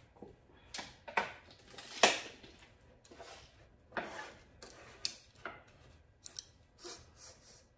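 Cut pieces of lumber being handled and measured on a work bench: irregular knocks, clicks and short scrapes, the sharpest about two seconds in.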